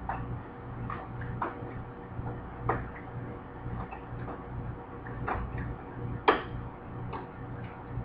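Irregular light clicks and taps of hand tools working on a stainless-steel door panel during a door-gasket repair, about a dozen of them, the loudest about six seconds in. Under them runs a low hum that pulses about twice a second.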